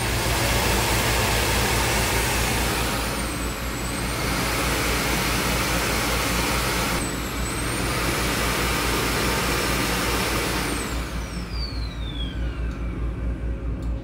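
Samsung Bespoke Jet clean station auto-emptying the vacuum's dust container: a strong rush of suction air with a high whine that dips and recovers about every four seconds. About ten seconds in the motor winds down, its whine falling steadily in pitch.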